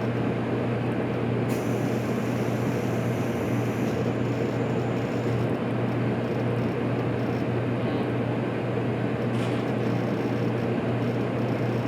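JR Kyushu 783 series electric limited express running, a steady rumble of wheels on rail with a low hum from the traction equipment. About a second and a half in, a higher hiss joins for a couple of seconds.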